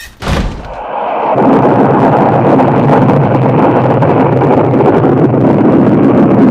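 A sudden bang, then a loud rumbling roar that builds over about a second and holds steady.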